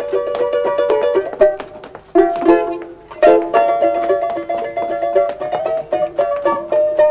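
Film score music: a plucked string instrument playing a lively tune of quick, rapidly repeated notes, which thins out briefly about two seconds in.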